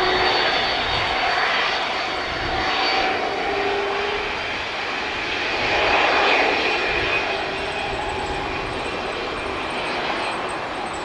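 Jet engines of a twin-engine Boeing 767 freighter running as the aircraft rolls along the ground at the airport: a steady rushing engine noise with a thin high whine, swelling a little about six seconds in.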